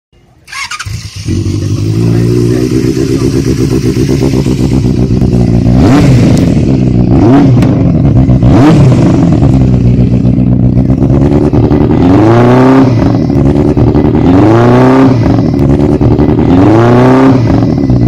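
Benelli TNT 600i's 600 cc liquid-cooled inline-four through its stock under-seat exhaust: it starts about a second in and idles, takes three quick throttle blips, then is revved three times in longer rises and falls.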